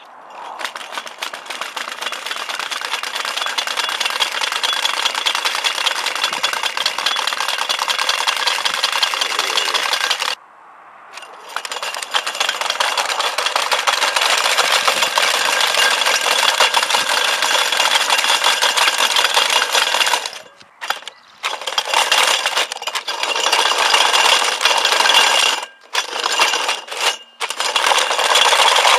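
Small electric gearmotors of a homemade six-legged robot running, a fast rattling clatter with a faint whine as the spoked wheel-legs turn. It cuts out for about a second a third of the way through, and stops briefly three or four more times in the last third.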